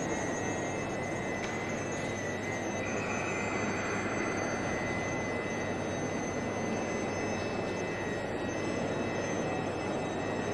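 Several thin, steady high-pitched sine tones from mobile phones running a frequency-generator app, one of them gliding upward about three seconds in. Under them runs a steady rumble of large-hall ambience.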